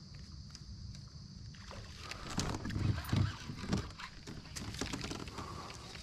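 Kayak paddling: water splashing and dripping off the paddle, with a few low thumps, loudest about two to four seconds in.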